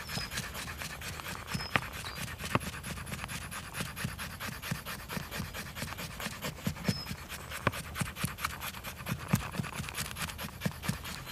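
A knife blade shaving down a split wood stick again and again, carving thin curled feathers for a feather stick. Each stroke is a short scrape, several to the second in a quick, even rhythm.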